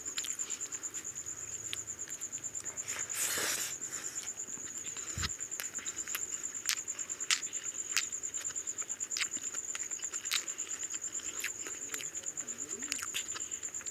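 A steady, rapidly pulsing high chirp like a cricket's, with scattered short clicks and smacks of people eating rice and curry with their fingers.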